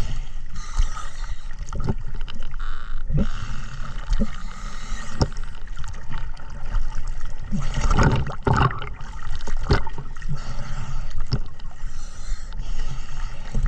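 Water sloshing and gurgling around the camera, with a steady low rumble and several sharp knocks, the loudest about eight seconds in.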